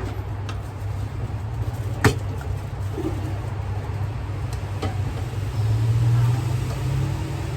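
Low, steady rumble of road traffic that swells about six seconds in as a vehicle passes. A single sharp knock, like a utensil or dish striking, comes about two seconds in.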